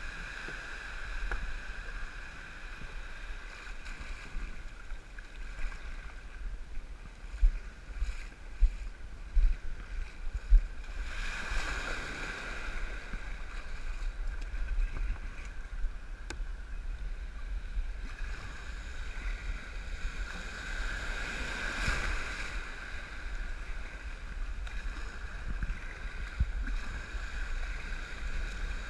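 Small surf washing and paddle splashes around a sit-on-top kayak paddled out through shallow breaking waves, with wind rumbling on the microphone. The wash swells up about eleven seconds in and again around twenty seconds, and a few low bumps come just before the first swell.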